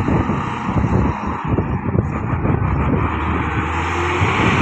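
Hino FM1J truck's diesel engine running as the loaded truck drives up close, getting a little louder as it nears, with a steady low drone in the second half.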